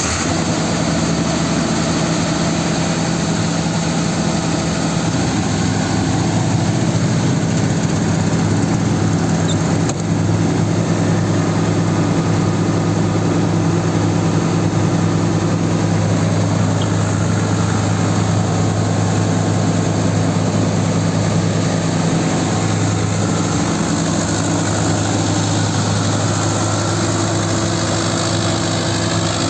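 Diesel generator set engine running steadily.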